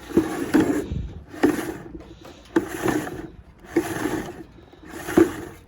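Homemade cable reel being cranked by hand as Cat 5 cable winds onto it: a rubbing, scraping swish with each turn, repeating about once a second.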